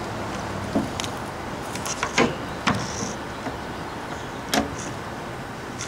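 Several sharp knocks and clunks of tools and wood being handled on a workbench, about five in all, with two close together about two seconds in.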